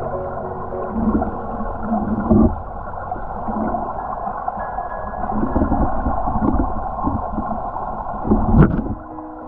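Running water gurgling, heard muffled through a camera held at or under the water's surface, with low surges and two knocks, one a couple of seconds in and one near the end.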